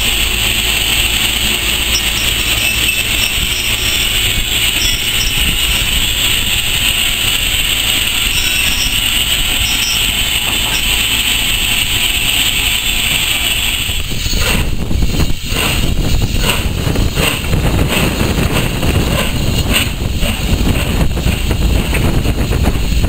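Steam locomotive and tender moving slowly past, with a steady hiss. About fourteen seconds in, the sound turns rougher, with irregular bursts of escaping steam and wind buffeting the microphone, as the engine is wrapped in steam.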